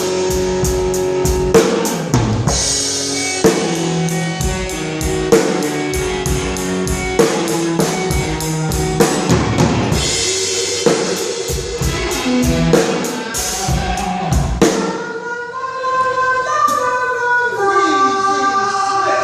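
Live rock band jamming at a soundcheck: a drum kit keeps a steady beat with bass drum, snare and cymbals under sustained guitar notes. About fifteen seconds in, the drums stop and only held, sliding tones ring on.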